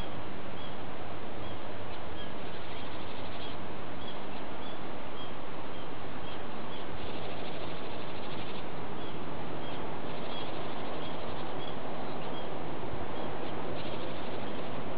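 Japanese tit calling: a string of short high notes repeated about once or twice a second, faint under a steady noise hiss.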